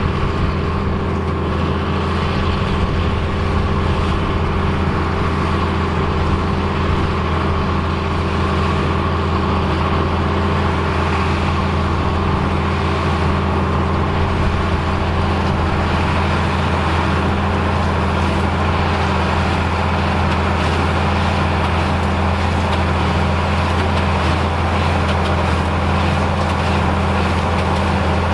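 Engine of vintage harvest machinery running steadily at a constant speed, with a deep, unchanging hum and no revving.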